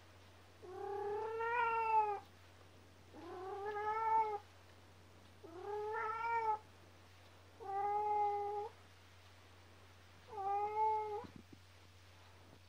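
Domestic cat crying: five long, drawn-out meows, each about a second long and roughly two and a half seconds apart, each rising slightly and then falling in pitch.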